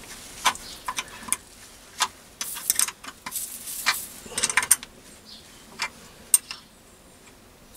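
Steel spanner working the clamp nut of a lathe saddle stop, locking the stop to the bed: irregular light metallic clicks and ticks in small clusters, fading out about six and a half seconds in.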